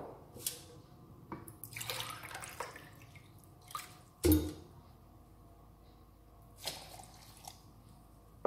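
Water poured from a glass into a plastic blender jug of yogurt and gram flour, splashing and dripping. A few light knocks, and a louder knock about four seconds in.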